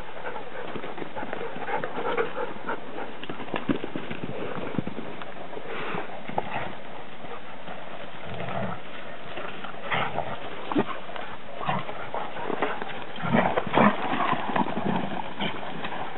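Rhodesian Ridgeback and black Labrador dogs play-fighting: growling, with their paws scrambling and running through dry leaf litter. The loudest growls come near the end.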